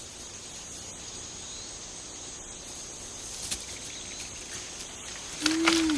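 Jungle ambience with a steady high insect drone and a few faint ticks. Near the end a chimpanzee starts calling, a wavering pitched call.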